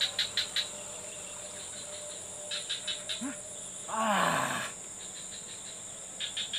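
Insects (crickets and cicadas) chirring steadily, with short runs of quick ticks near the start, about two and a half seconds in and near the end. About four seconds in a brief louder rush of sound comes, with a falling tone under it.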